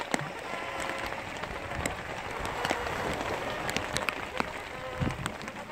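Rain of large drops pattering steadily, with many sharp individual drop hits, and a dull thump near the end.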